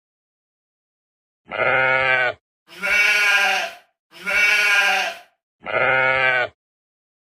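Four sheep bleats, each about a second long, separated by short gaps of silence.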